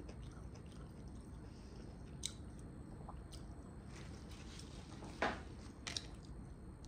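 Soft close-up chewing of a stuffed collard-green roll (kara lahana sarması), with a few short sharp clicks, the loudest about five seconds in.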